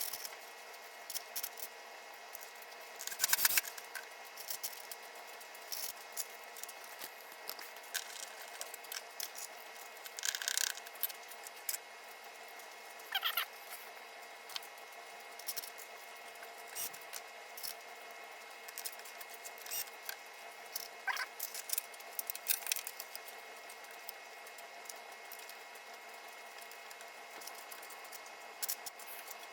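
Scattered light clicks, taps and rattles of small parts and hand tools being handled during pinball playfield assembly, sped up, over a faint steady hum.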